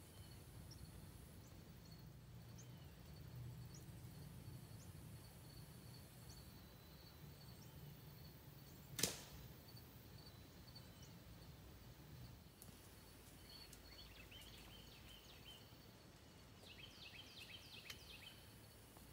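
Quiet woods with a faint steady high insect drone, broken about nine seconds in by a single sharp snap of a compound bow being shot at close range to finish a wounded doe. Faint bird chirps come near the end.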